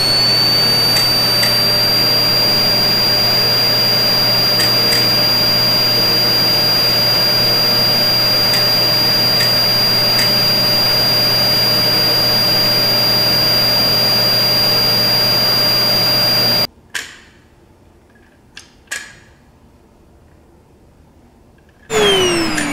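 Small battery-powered motor of a toy vacuum cleaner running with a steady high whirring whine. It cuts off suddenly about 17 s in, leaving a few small clicks. A loud sound with falling pitch starts near the end.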